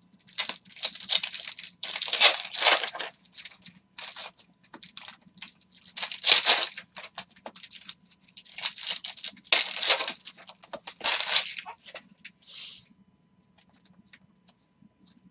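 Trading card pack wrappers crinkling and tearing as packs of 2021 Clearly Donruss football cards are ripped open by hand, in a run of rustling bursts that stops near the end.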